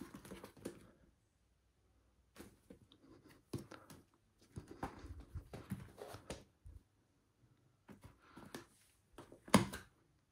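Packaging being handled during an unboxing: scattered rustles, light clicks and taps in short clusters with pauses between, and one sharper knock near the end.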